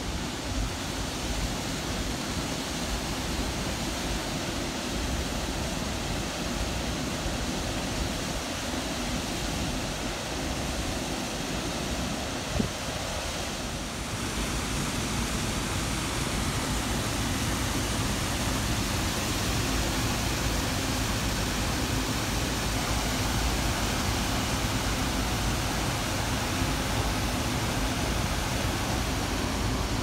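Water pouring over a small stone spillway dam, a steady rushing that grows a little louder about halfway through. There is one brief knock a little before the midpoint.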